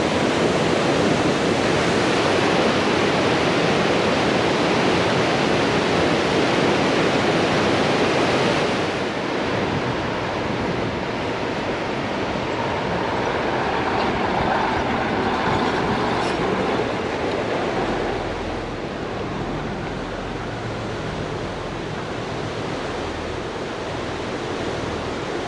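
Fast mountain river rushing loudly over rocks, heard close up. About nine seconds in the rush drops to a softer, steadier level, and in the later part a low engine rumble from a large off-road truck on the dirt track joins it.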